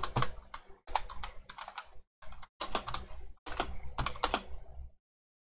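Typing on a computer keyboard: runs of quick key clicks with short pauses between words, stopping about five seconds in.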